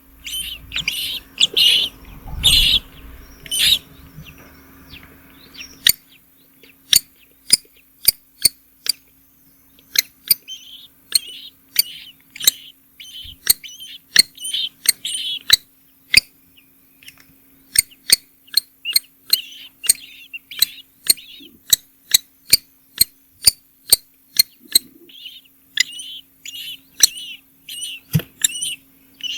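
Small birds in a nest chirping in short, high, repeated calls that come in clusters, among many sharp clicks; a faint steady low hum underneath.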